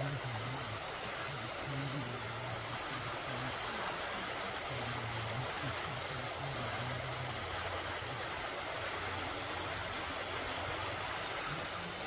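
Creek water flowing over rocks, a steady rushing hiss. A faint low hum comes and goes underneath.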